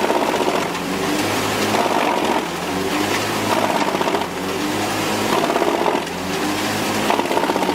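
Heavy machinery running with a fast, continuous rattle, rising and falling in a repeating cycle about every two seconds.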